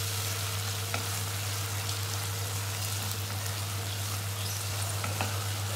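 Onion, capsicum and green chillies sizzling in oil and sauce in a nonstick pot while being stirred with a wooden spatula. A faint tap of the spatula comes about a second in and again near the end, over a steady low hum.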